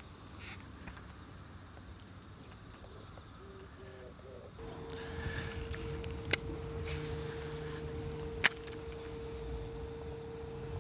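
Insects chirping steadily in a continuous high trill. About halfway through a steady low hum starts underneath, and two sharp clicks come about two seconds apart.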